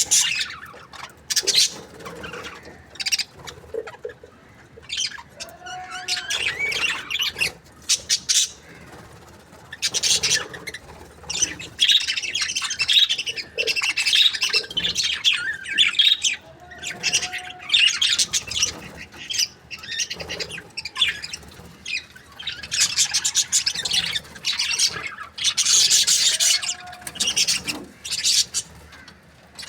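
Budgerigars chirping and chattering in repeated bursts, with squawks among them. Three times a lower, arching note sounds among the chirps.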